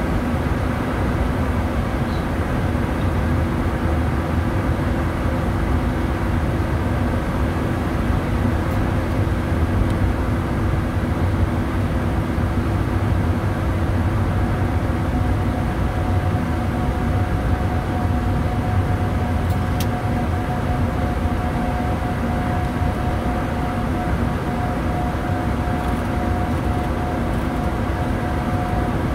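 Steady in-flight flight-deck noise of a Bombardier Challenger 350 business jet: the rush of air over the airframe and the hum of its twin Honeywell HTF7350 turbofans, with a few steady low hums. A higher steady tone joins about halfway through.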